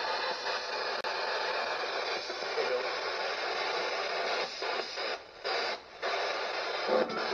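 Spirit box sweeping through radio stations: a steady rush of radio static, cutting out briefly twice about five and six seconds in.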